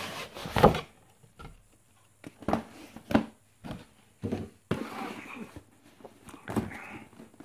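Cardboard packaging being handled: a plain brown inner box taken out of its printed outer box and set down on a tiled floor. It gives a series of short knocks and scuffs, the loudest just under a second in.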